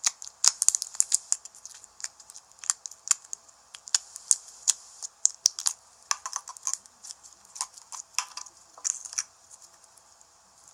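Quick, irregular sharp clicks and crackles from something handled by hand, in uneven clusters that come thickest near the start and again a little after the middle.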